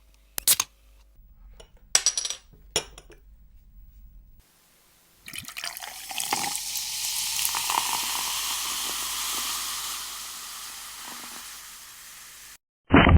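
A few sharp clicks, then liquid pouring into a glass for about seven seconds, swelling and then tapering off before it stops suddenly.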